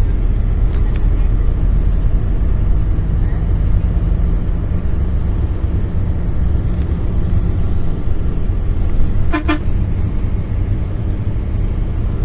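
Steady low rumble of a sleeper coach's engine and road noise heard inside the passenger cabin, with a short, pulsing horn honk about nine seconds in.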